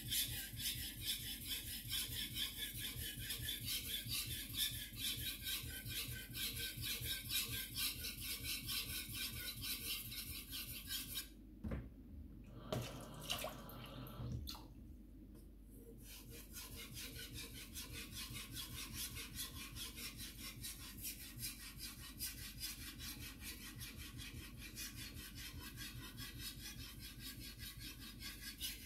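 Blade of a carbon-steel Wakui Shirogami #2 gyuto being stroked back and forth on a wet Arashiyama #6000 water stone: steady, rhythmic scraping of steel on fine stone. The strokes stop for a few seconds about halfway, with a couple of light knocks as the knife is lifted off, then resume more quietly.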